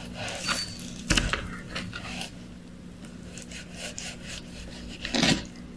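Serrated kitchen knife sawing back and forth through raw chicken breast on a plastic cutting mat: a run of uneven scraping strokes, with a louder stroke near the end.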